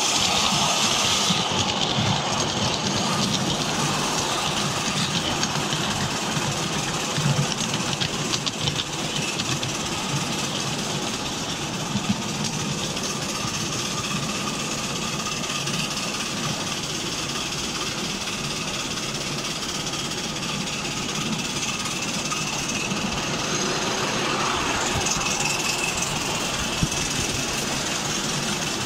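Ride-on miniature railway train running along its track, heard from on board: a steady running noise with a few sharp clicks from the wheels on the rails.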